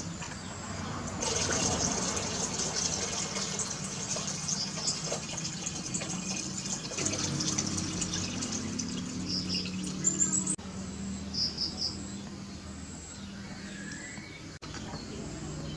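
Water being poured into a glass aquarium tank: a steady splashing rush that cuts off abruptly about ten and a half seconds in.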